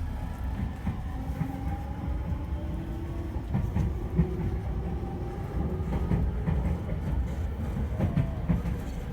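Electric commuter train running, heard from inside the carriage: a steady low rumble, the traction motors' whine rising slowly in pitch as the train gathers speed, and a few knocks from the wheels and running gear.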